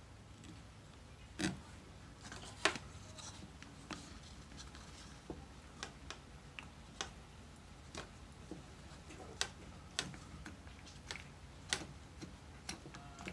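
Irregular sharp clicks and taps of small plastic and metal parts being handled while a joystick housing is fitted back together with screws, two louder knocks in the first three seconds.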